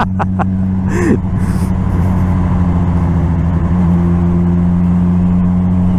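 Vehicle engine running at a steady cruise with road noise, its pitch stepping slightly about four seconds in.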